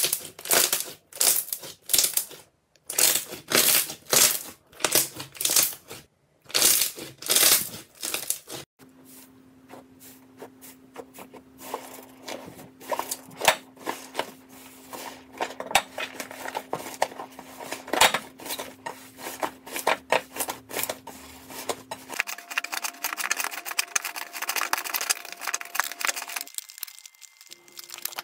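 Hands squeezing and kneading slime, making wet crackling and popping clicks. The first part is a clear speckled slime, with loud squeezes each a second or so long and short pauses between them. From about nine seconds in it is a fluffy slime, with quieter, quicker, finer crackling.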